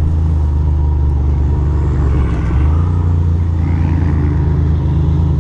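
Ducati Monster 620's air-cooled L-twin engine running under way, a steady low rumble whose pitch shifts about halfway through.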